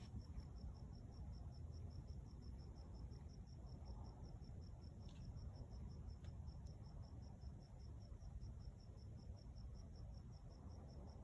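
A cricket chirping in a steady, even rhythm of high pulses, about six a second, faint over a low background rumble.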